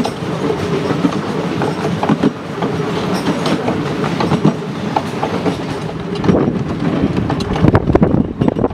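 Miniature railway train running on its track, the wheels clicking and clattering over the rail joints with a steady rumble.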